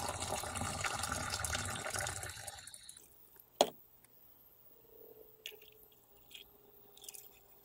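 Hot water poured from a glass electric kettle into a glass beaker, rinsing gold powder; the pour runs for nearly three seconds and stops. About a second later comes a single sharp knock as the kettle is set down, then a few faint trickles as the rinse water is tipped off.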